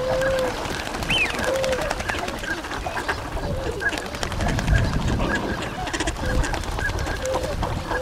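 A wintering flock of tundra swans and ducks calling on open water: many short calls overlapping throughout, with a few longer held notes.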